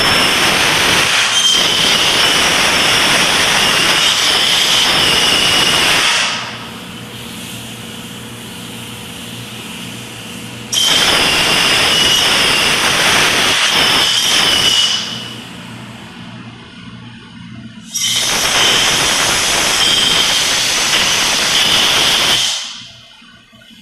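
Compressed-air blow gun blowing excess powder coat off a BMX frame in three long blasts, each with a faint whistle, the second starting about eleven seconds in and the third about eighteen seconds in. A quieter steady low hum runs between the blasts.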